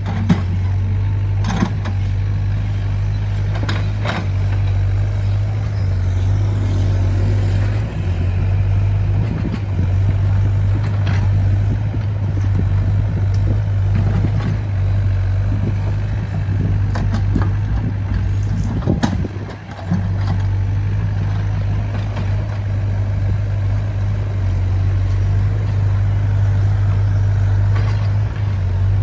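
Compact wheeled excavator's diesel engine running steadily under load with a low hum, with a few sharp knocks from its work.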